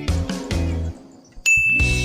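Background music with a steady bass line and beat breaks off about a second in. A single bright ding then rings on, and the music comes back in.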